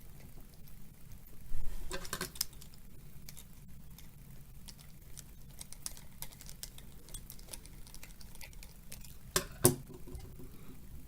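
Small clicks and taps from handling the parts of an RC crawler beadlock wheel and tire, with a few louder knocks about two seconds in and again near the end.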